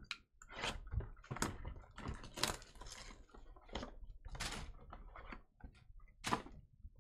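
Hands tearing open a sealed trading card box and its wrapping: an irregular run of crinkling and ripping, with the sharpest rips about two and a half and six seconds in.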